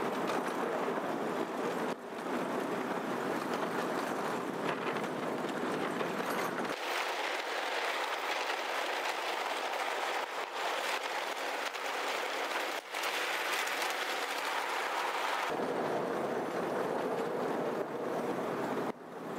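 Steady rolling noise of a 12-inch gauge ride-on miniature train, heard from aboard as it runs along its track. The deep part of the sound cuts out abruptly about a third of the way in and returns abruptly about three quarters of the way through.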